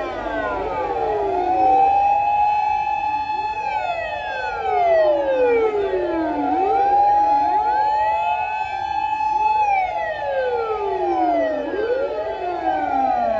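Several fire engine sirens sounding together, each wail rising to a held high tone and then sliding down, the wails overlapping out of step as a continuous line of fire trucks passes.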